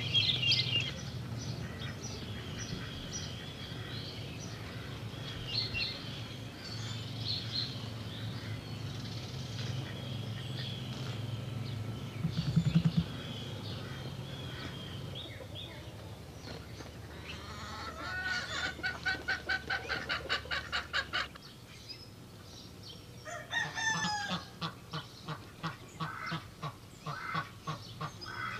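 Poultry calling outdoors: scattered chirps, then a run of rapid repeated honking calls a little past the middle and more calls near the end, over a steady low hum that stops about three-quarters of the way through.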